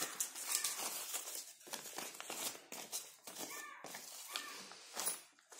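Newspaper rustling and crinkling with short crackles as cut paper pattern pieces are handled and unfolded.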